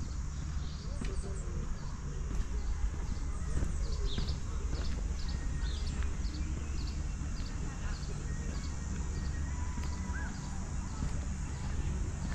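Steady footfalls on a hard surface, about two a second, over a steady low rumble.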